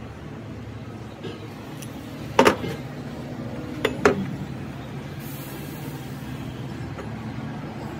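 Metal parts clanking against each other twice, sharp ringing strikes about two and a half and four seconds in, the second a quick double, over a steady low machine hum.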